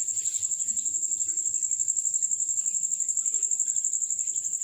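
Cricket trilling steadily, a continuous high-pitched trill made of rapid, even pulses.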